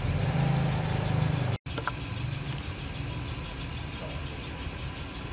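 A steady low mechanical hum, like an idling engine, with a short dropout about a second and a half in, a click just after, then quieter.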